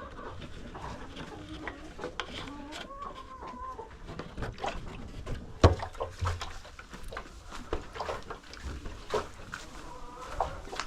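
Chickens clucking, with scattered knocks and clatter. A sharp knock about five and a half seconds in is the loudest sound.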